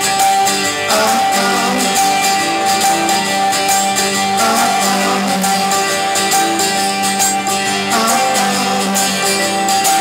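Live band playing an instrumental passage, led by strummed acoustic guitar, with a steady held note over it and no singing.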